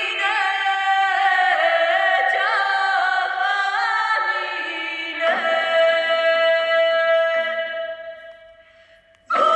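Music: several voices singing together in harmony. A long held note comes about halfway through, then the sound fades almost to nothing shortly before the end, and the singing comes back in loudly right at the end.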